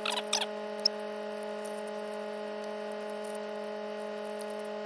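A steady droning hum made of several held tones, with a few faint clicks in the first second.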